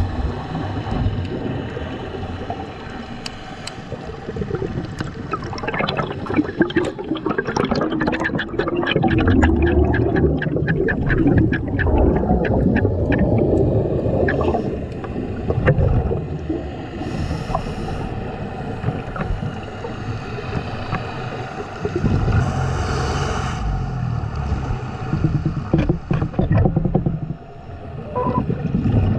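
Scuba breathing heard underwater: a long stretch of crackling, gurgling exhaust bubbles from the regulator in the middle, with short hissing inhalations later on, over a steady low rumble.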